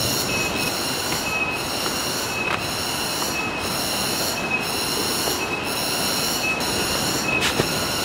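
Jungle cicada chorus: a high buzzing drone that pulses about once a second, over a steady hiss.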